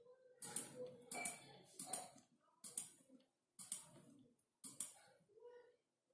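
Computer mouse clicks and keyboard key taps: about seven short pairs of sharp clicks, roughly one pair a second, as cells are picked and minus signs typed into a spreadsheet formula.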